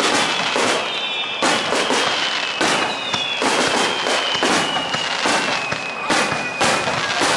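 Aerial firework shells bursting overhead in quick succession, a sharp bang about every second with crackling in between.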